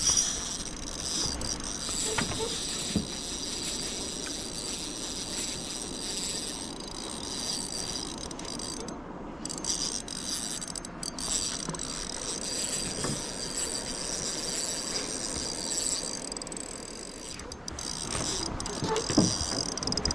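Daiwa Exist spinning reel clicking and ratcheting as it is wound and its loose drag slips, giving line to a hooked rainbow trout.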